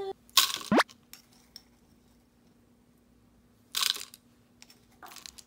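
Small kitchen handling sounds during food prep: a short rustle about half a second in that ends in a quick falling tone, and another brief rustle near four seconds in, over a faint steady hum.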